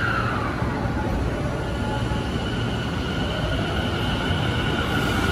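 Tobu 50000-series electric train starting to pull away from the platform. A low rumble runs throughout. From about a second and a half in, a steady, slowly rising electric whine joins it, and the train gets louder toward the end as it picks up speed.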